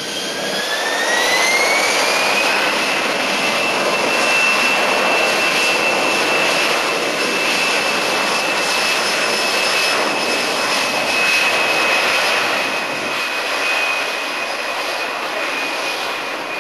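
Airbus A320-212's CFM56 jet engines spooling up for the takeoff roll. A whine rises in pitch over the first couple of seconds, then holds steady over a loud, even rush of jet noise.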